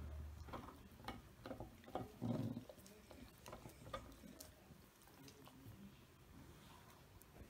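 Faint dog play: scattered clicks of a puppy's claws and collar tag on a tile floor, with one short low growl a little over two seconds in.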